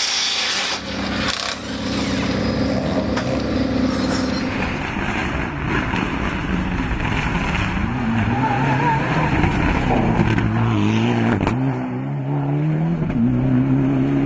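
Mitsubishi Lancer Evolution rally car's engine revving hard on a stage, pitch climbing and dropping with quick gear changes, the car passing close with tyre noise.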